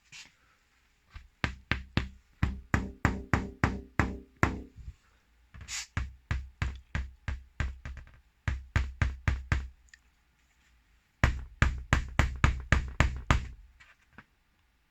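Three runs of rapid knocks, about three a second, each with a short hollow ring, separated by pauses of about a second.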